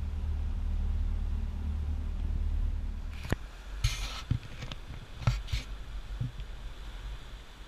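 Steady low rumble on the camera's microphone while the motor yacht cruises under way. About three seconds in it drops away to a quieter background with a handful of sharp knocks and short scrapes from the camera being handled.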